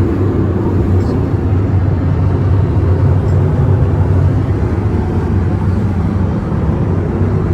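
Steady low rumble of an Airbus A321 airliner's cabin in cruise: engine and airflow noise heard from inside the cabin.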